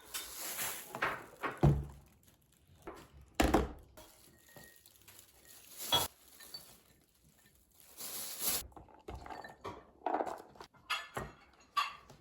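Objects being handled and set down: a series of separate knocks and clinks, with two short stretches of hiss, one at the start and one about eight seconds in.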